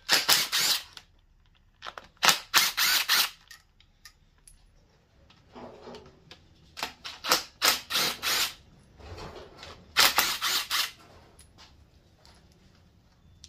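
DeWalt cordless impact driver hammering bolts loose, in several short bursts of rapid clattering impacts.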